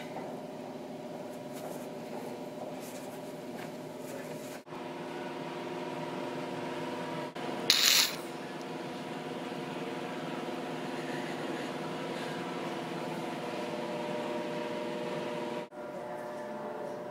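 Steady machine hum with several held tones, like a fan or blower running. It drops out briefly three times, and about eight seconds in there is a short loud hissing burst.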